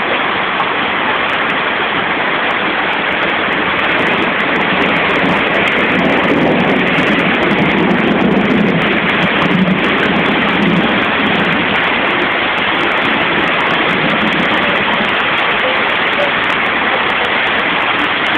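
Heavy hail falling in a downpour: a loud, steady rush of impacts with many sharp ticks scattered through it.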